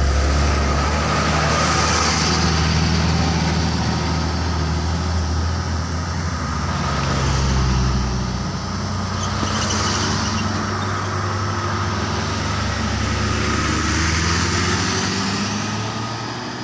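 Road traffic passing close by: a diesel coach bus goes past first with its engine running low and steady, then a car and a pickup truck pass, each passing vehicle swelling up and fading.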